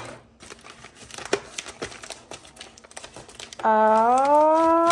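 Hands rummaging through plastic spice jars and crinkly seasoning packets in a wire basket, with light clicks and rustling. Near the end a loud, drawn-out voice rises in pitch for about a second and a half.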